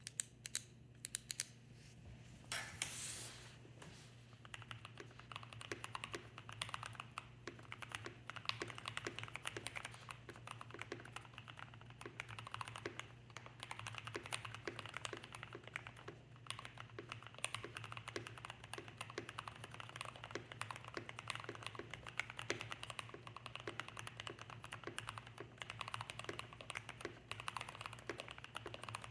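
Typing on a KBD67 Lite R3 65% mechanical keyboard: a few separate key presses at first, then a steady run of clattering keystrokes. There is a short burst of noise about three seconds in and a low steady hum underneath.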